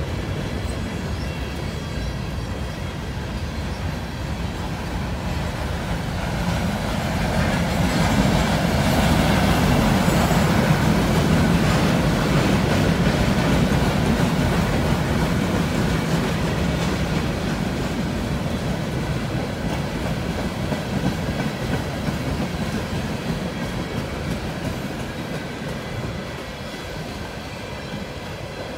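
Freight train's empty bulkhead flatcars rolling past at close range: a steady rumble and clatter of steel wheels on the rails, swelling about a quarter of the way through and easing off toward the end. A faint high wheel squeal rides over it.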